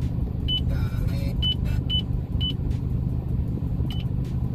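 Five short, high electronic beeps from the Mazdaspeed 3's factory head unit as its buttons are pressed to find the info screen, over the low steady rumble of the running car.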